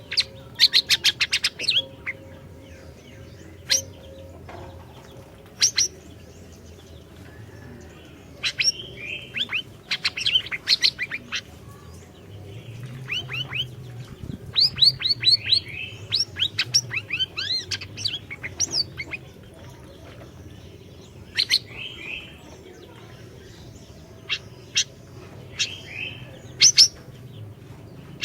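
Siri-siri bird singing in repeated phrases of rapid, high chirps and quick trills, with short pauses between phrases, over a steady low hum.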